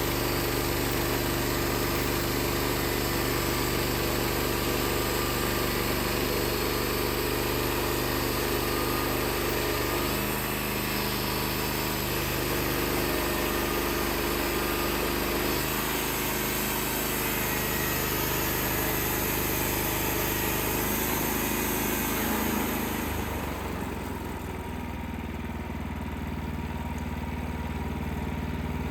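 Wood-Mizer LX55 portable band sawmill's 14 hp engine running steadily. A high hiss that goes with it cuts out near the end, leaving a lower, steadier engine note.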